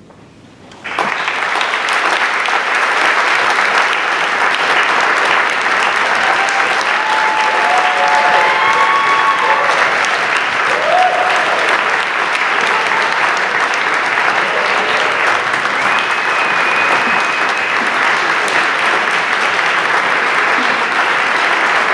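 Concert audience applauding, breaking out suddenly about a second in and holding steady, with a few cheers.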